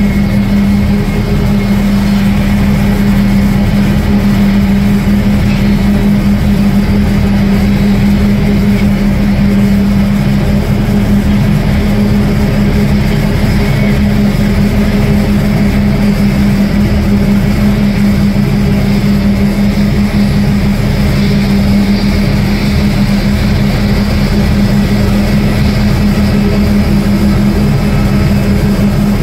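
Steady, loud engine drone with a constant deep hum, from the airliner and de-icing trucks during an aircraft de-icing operation.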